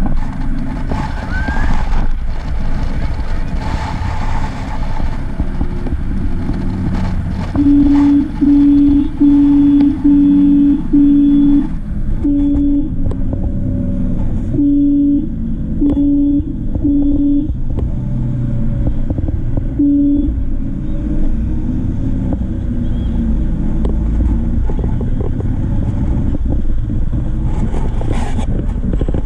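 Steady low rumble of a vehicle driving along a highway, with road and engine noise. In the middle comes a run of about ten short, low, steady tones at uneven spacing.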